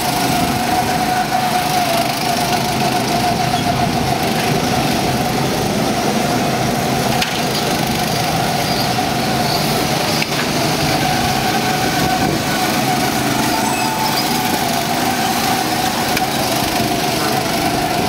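Go-karts running around a track: a steady engine drone with one held tone over it.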